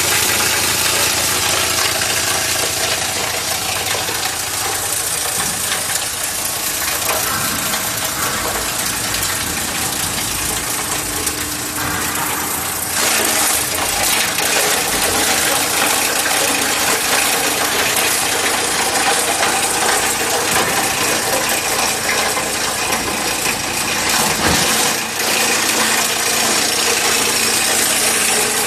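Plastic granulator with a scissor-cut rotor and a 7.5 hp electric motor running steadily: a dense, even machine noise with a few clicks, getting a little louder about thirteen seconds in.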